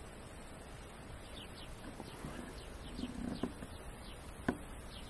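Small birds giving faint, short falling chirps again and again over a steady high hiss, with one sharp click about four and a half seconds in.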